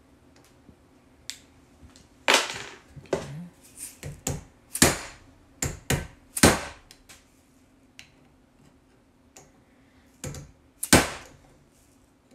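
Hand tools being handled at a workbench around a padlock clamped in a bench vise: about a dozen irregular sharp knocks and clinks, the loudest about two seconds in, with a pause before a last pair near the end.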